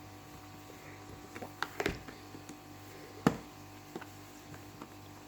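Handling of a product box during unboxing: a few light clicks and knocks around two seconds in, then one sharper knock about three seconds in, over quiet room tone.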